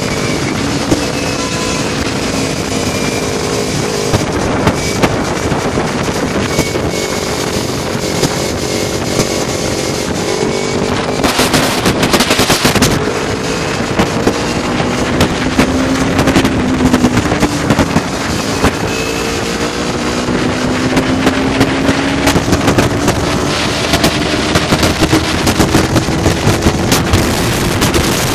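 Kawasaki Ninja sport bike's engine running at road speed, heard from the rider's seat, its pitch sinking and then climbing again as the throttle changes, under a steady rush of wind on the microphone. About a third of the way through, a louder rush of noise swells briefly.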